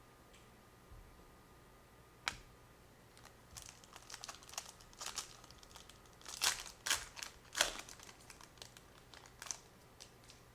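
A trading-card pack's foil wrapper crinkling and tearing as it is opened by hand, in a run of irregular crackles, after a single sharp click about two seconds in.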